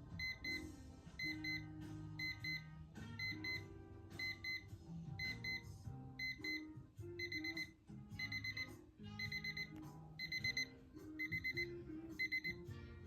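DreamSky jumbo display alarm clock's alarm beeping with a high electronic tone, first in pairs about once a second, then in faster groups of four in the second half. It stops shortly before the end when the snooze button is pressed.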